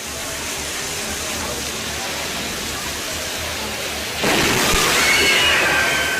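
Steady rain, then about four seconds in a sudden, louder burst of thunder from a nearby lightning strike that keeps going, with a high wavering sound over it near the end.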